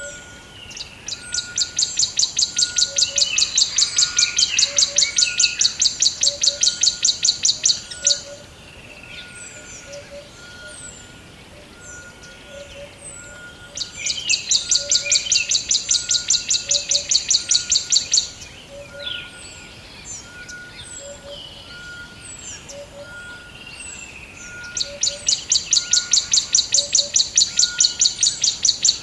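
Forest birdsong: a loud, rapid, high-pitched trill lasting several seconds comes three times, with short scattered chirps between. Underneath, a fainter single note repeats steadily about once a second.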